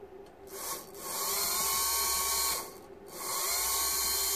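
Small brushed electric pump motor from a Mitsubishi HBB brake unit, run off a 12-volt supply on the bench: it whirs up to speed and runs steadily for about two seconds, stops, then starts again about three seconds in and keeps running. The freshly repaired motor is working.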